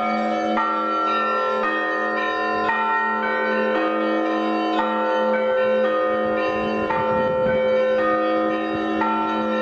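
Russian Orthodox church bells ringing a peal (zvon) for an evening service. Several bells are struck in turn about twice a second in a repeating pattern, over the steady hum of a lower bell.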